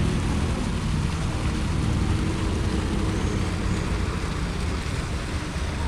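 Steady rumble of city road traffic, an even wash of noise with no single vehicle standing out.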